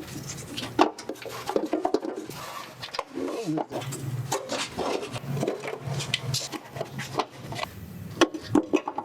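Thin metal heat shield being handled and fitted into place under the vehicle: irregular clanks, taps and scraping of metal against metal.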